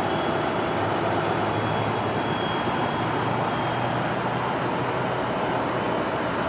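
Siemens Charger diesel-electric locomotives idling steadily while the train stands still.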